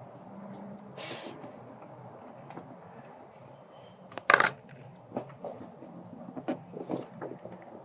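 Hand tools and small metal parts clicking and clanking during work in a pickup's engine bay, with one sharp clank about four seconds in and a run of light taps near the end.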